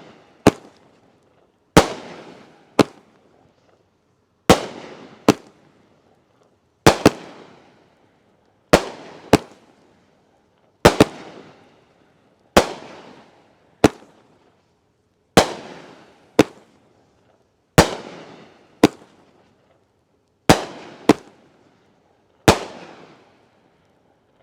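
Dominator Fireworks' Emerald Meteor 350-gram box cake firing shot after shot. Sharp bangs come in pairs every couple of seconds, each trailing off, and the cake goes quiet near the end.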